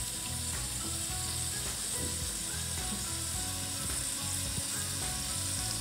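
Marinated chicken drumsticks and thighs sizzling steadily in a pan over a medium-high gas flame as they finish cooking.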